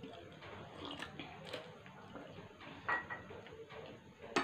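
Faint, scattered clinks and taps of a drinking glass and plates, a few in all, with the sharpest and loudest just before the end.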